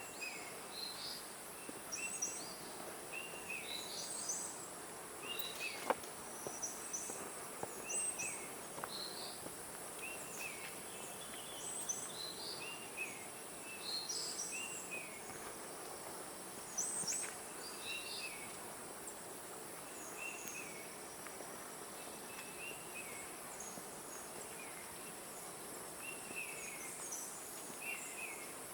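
Tropical forest ambience: birds giving short chirps, roughly one a second, over a steady high-pitched insect drone.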